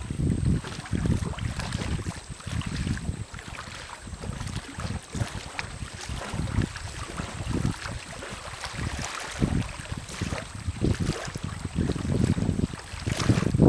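Wind buffeting the microphone in irregular gusts, a choppy low rumble that rises and falls. Faint high pulses come about twice a second behind it.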